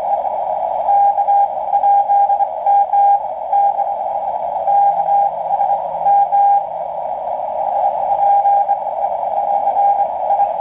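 Morse code (CW) from coast station KPH received on a shortwave communications receiver tuned to 8642 kHz. A single tone keys on and off in dots and dashes over a narrow band of static hiss.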